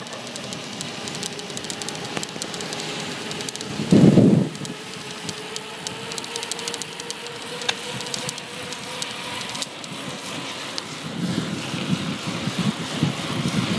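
Wind rushing over the microphone and tyre noise on tarmac during a fast downhill run on a bicycle, with light rattling clicks throughout. A heavy gust of wind buffets the microphone about four seconds in, and the low buffeting returns near the end.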